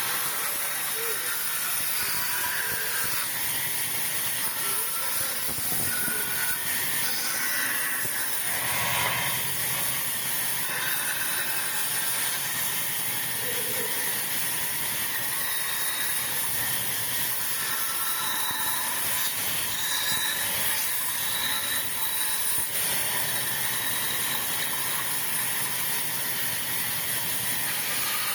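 Sawmill saw cutting wood: a steady, hissing machine noise with faint whines coming and going.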